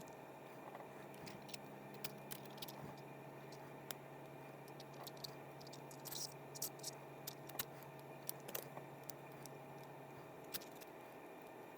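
Small, sharp clicks and taps of fishing-reel parts being handled and worked apart, coming irregularly and most often past the middle, over a faint steady hum.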